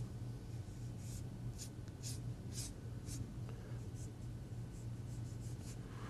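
Paintbrush stroking across watercolor paper: a run of short, soft swishes, about two a second at first, then sparser, over a faint steady low hum.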